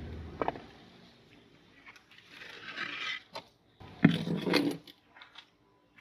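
Irregular scraping, rustling and knocks of things being handled, loudest in a cluster of knocks about four seconds in.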